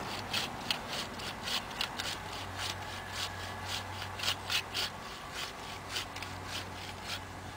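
Hand saw cutting through a Christmas tree's trunk, in quick, uneven rasping strokes, about two to three a second.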